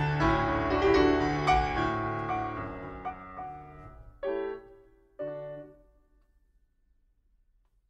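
Slow background piano music winding down to two last soft chords about four and five seconds in, then dying away to silence.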